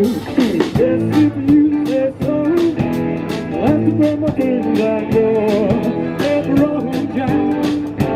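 A song with a singing voice over strummed and plucked guitar.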